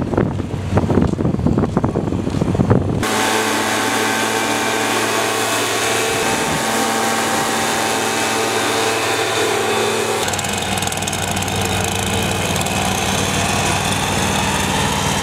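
Voices and street noise for about three seconds, then a backpack leaf blower's small two-stroke engine running steadily, its tone shifting slightly about ten seconds in.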